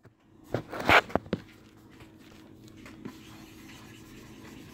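Brief rustling and scuffing from close handling, loudest about a second in, followed by a faint steady hum.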